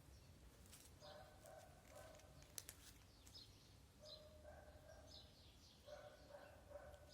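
Faint bird calls: three short pitched calls a couple of seconds apart, with quick high chirps between them.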